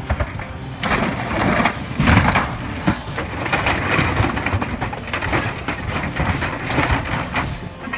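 Building debris crunching and splintering during a demolition: a dense run of cracks and crushing that surges irregularly, loudest about two seconds in.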